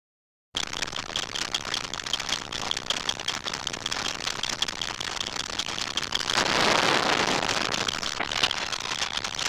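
Electronic science-fiction sound effect: a dense, rapid crackle that starts suddenly, swelling into a louder rushing hiss for about a second and a half just past the middle before crackling on.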